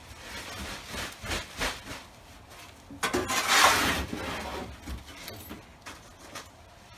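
Ceiling demolition debris and loose insulation being shovelled into a plastic bag and bin: scraping and rustling with a few knocks, and a louder rustling rush about three seconds in that lasts about a second.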